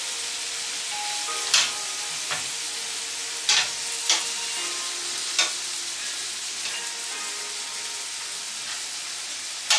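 Steak strips sizzling steadily in a grill pan, with several sharp clicks of metal tongs against the pan and against each other as the pieces are turned.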